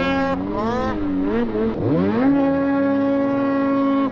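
Ski-Doo Summit snowmobile's two-stroke engine running hard through deep snow: revs rise and fall a few times, drop sharply about two seconds in, then climb back and hold steady at high revs.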